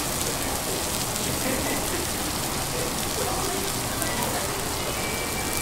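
Food sizzling steadily on a teppanyaki iron griddle, with faint voices underneath.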